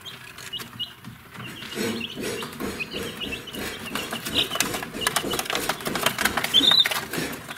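A brood of young chicks peeping: short high cheeps scattered throughout, with one louder rising peep near the end.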